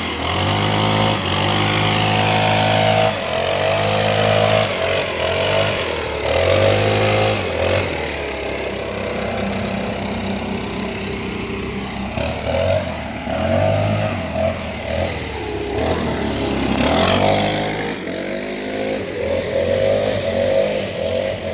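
Petrol leaf blower engine running, its pitch stepping up and down repeatedly as the throttle is opened and eased off.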